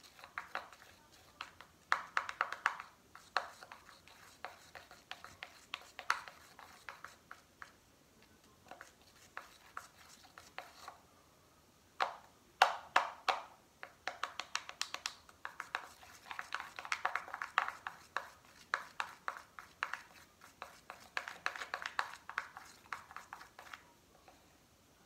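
A plastic utensil stirring thick home-made slime in a small plastic cup: quick clicking, tapping and scraping against the cup's sides, coming in spells with a few short pauses.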